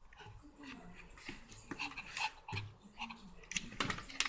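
A puppy's faint sounds at play: soft breathing and small scattered knocks and clicks, with a quick cluster of clicks near the end.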